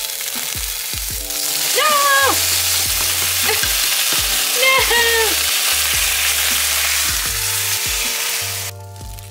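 Food sizzling in a hot frying pan, starting about a second in and stopping abruptly near the end, over background music with steady notes and a regular beat. Two short high calls rise, hold and fall, about three seconds apart.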